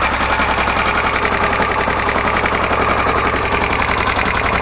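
Kawasaki VN1500 Vulcan V-twin engine idling steadily with a fast, even clatter from the valve train, which the mechanic puts down to dry hydraulic lash adjusters (valve compensators) after the engine lost its oil.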